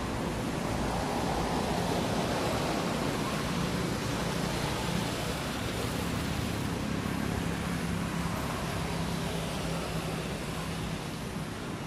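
Steady rushing background noise with a faint low, even hum through the middle, like a distant engine or traffic.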